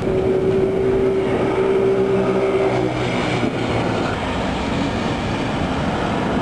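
Steady rain and wind noise of a thunderstorm. A mechanical drone with several steady tones runs over it for the first three seconds, then cuts off.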